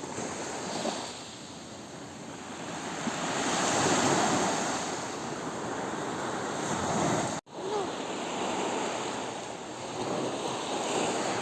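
Ocean surf: waves washing in as a continuous rushing noise that swells loudest about four seconds in, with wind buffeting the microphone. The sound cuts out for an instant about seven seconds in.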